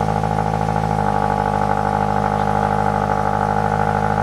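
Scion FR-S's 2.0-litre flat-four boxer engine idling steadily at a raised cold-start idle, breathing through a Tomei unequal-length header and the stock exhaust.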